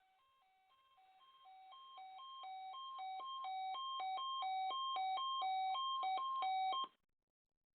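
An electronic keyboard tune alternating between two notes, a few notes a second. It starts faint, grows steadily louder and cuts off abruptly about seven seconds in.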